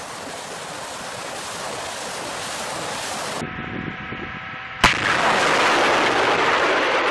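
Multiple rocket launcher firing: the rushing roar of rockets leaving the launcher. A sharp blast about five seconds in is followed by a louder roar of the next launch.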